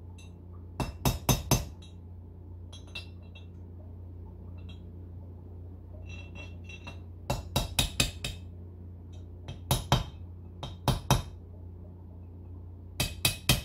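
Small brass-headed hammer tapping on the head of a steel bolt used as a drift, driving a bearing race down into a ZF parking brake housing: five quick runs of light metallic taps with pauses between, and a few faint clinks in the pauses. A steady low hum runs underneath.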